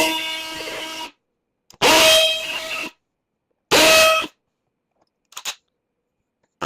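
Power drill drilling out pop rivets in a golf cart's body panel, run in short trigger bursts: about four, each loudest as it starts and easing off as the bit cuts, with a brief faint one near the end.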